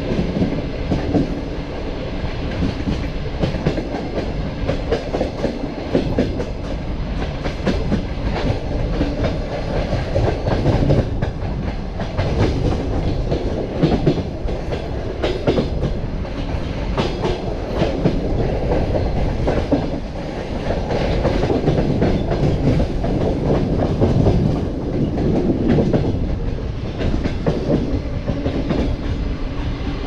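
Passenger train car running at speed, its wheels clicking and clattering over the track over a steady rumble of rolling noise.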